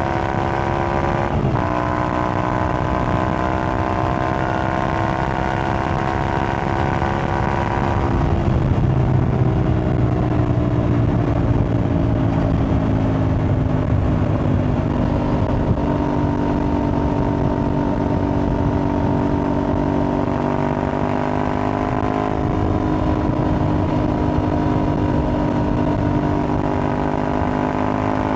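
Aprilia Tuareg 660's parallel-twin engine running at steady riding revs through a replica Akrapovic exhaust, with a quick dip in revs about a second in. About eight seconds in the revs drop and ease down over several seconds, then hold steady at a lower pitch.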